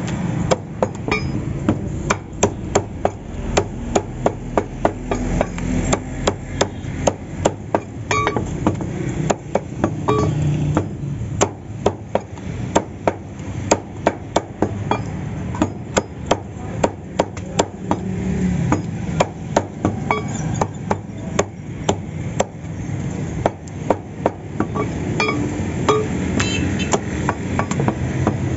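A meat cleaver chopping raw chicken on a wooden stump chopping block: a long run of sharp, irregular chops, roughly two or three a second.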